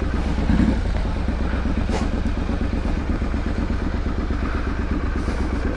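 Triumph Street Scrambler's 900 cc parallel-twin engine and exhaust running at low revs with a steady pulsing beat as the bike creeps along at walking pace. There is a short sharp click about two seconds in.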